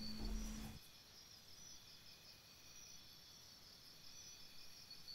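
Near silence after a faint sound dies away in the first second, then from about four seconds in faint, evenly repeated high chirping like crickets.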